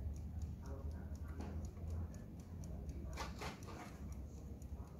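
Vintage German Wehrle alarm clock with a brass movement ticking steadily. A short burst of handling clicks and rustle comes about three seconds in.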